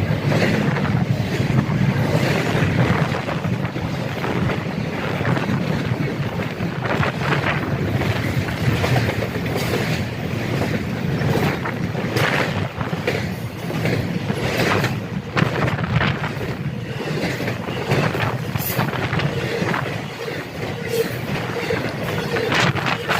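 A train passing at close range, its wheels clattering on the rails, with heavy wind from its wake buffeting the microphone.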